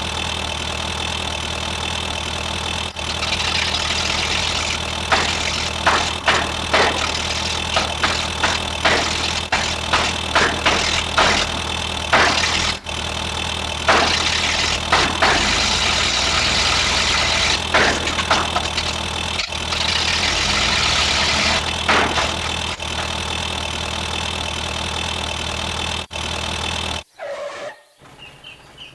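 Layered vehicle sound effects: an engine runs with a steady low rumble under many quick, irregular clicks and several long bursts of hissing. The sound cuts off suddenly near the end.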